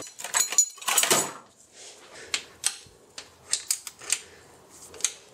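Metal hand tools clattering as a gloved hand rummages through a tool chest drawer, then scattered light metallic clicks and taps of tools working in the engine bay.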